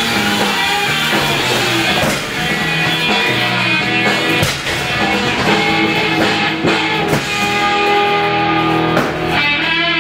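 Background rock music led by guitar.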